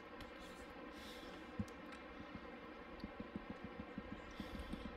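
Faint, quick clicking of a computer mouse scroll wheel, starting about three seconds in, over a low electrical hum.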